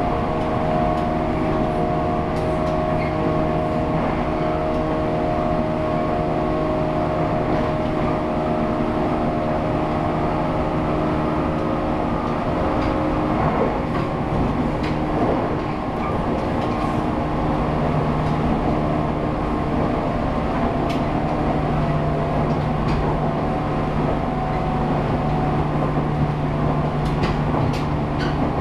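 JNR 183/189 series electric multiple unit running at speed, heard from the vestibule deck: a steady high-pitched traction motor whine over constant rolling noise, with a few sharp clicks near the end.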